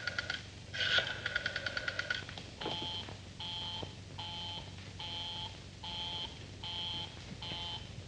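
Rotary telephone dial clicking off its last digits as rapid runs of clicks, then a busy signal heard through the receiver: a steady buzz pulsing on and off seven times, showing the line is engaged.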